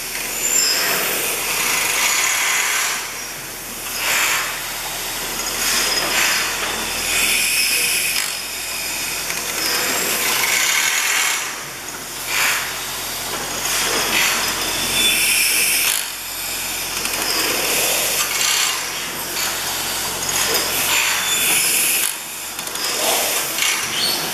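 Snow-Holly Works (Worthington) 600-horsepower reciprocating natural gas engine running, a busy mechanical clatter and hiss that swells and eases in a slow, even rhythm about every two to three seconds.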